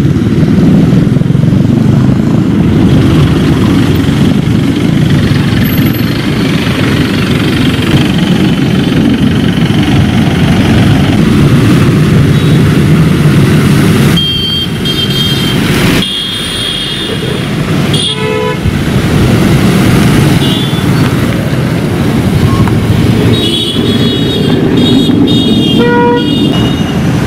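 Road traffic of cars, a pickup and motorcycles driving along a flooded road, with steady engine and road noise. Vehicle horns toot several times from about halfway in, most often near the end.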